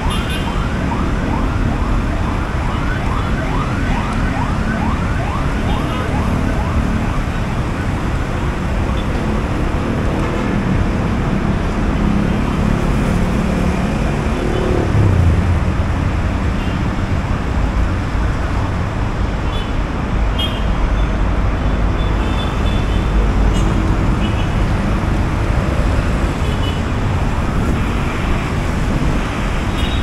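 Busy intersection traffic heard from above: a steady rumble of car and motor-scooter engines and tyres passing. For the first several seconds a fast-warbling siren sounds over it, and a louder low engine note swells about halfway through.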